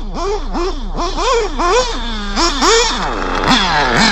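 Nitro RC buggy's FX engine revving hard in quick throttle blips. The pitch climbs and drops back a few times a second, holds steady briefly about two seconds in, then falls away in glides as the throttle eases off.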